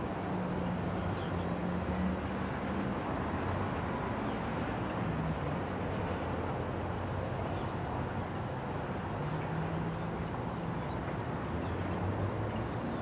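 Cars driving over a railway level crossing just after a freight train has cleared it: passing engines and tyres over a steady rumble, with a few bird chirps near the end.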